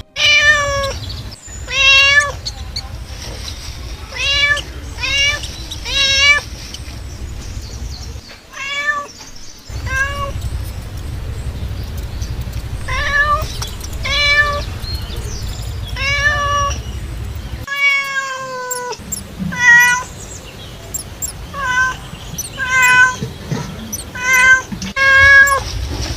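A cat meowing repeatedly, about fifteen short high calls one to two seconds apart, with one longer meow that falls in pitch past the middle. A steady low hum runs underneath and drops out briefly twice.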